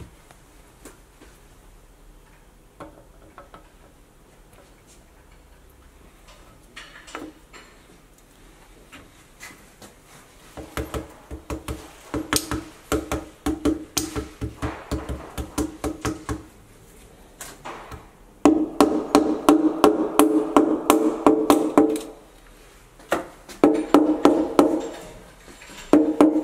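Rapid tapping with the end of a red mallet on a piston crown, driving the piston and its rings through a steel ring compressor into the bore of a Subaru EJ22 boxer block. Each tap rings with a pitched tone. The tapping starts about ten seconds in and comes in quick runs with short pauses between them.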